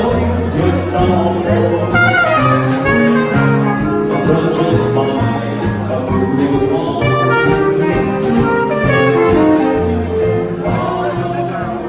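Live jazz band playing an instrumental passage: a lead melody line in quick runs over upright bass and piano.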